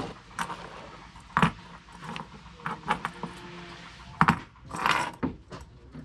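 Small sailing hardware being handled on a wooden workbench: about half a dozen separate clicks, clinks and knocks as the metal double block, shackle and plastic cleat of a rope trapeze adjuster tap against each other and the bench, with brief rope rubbing between them.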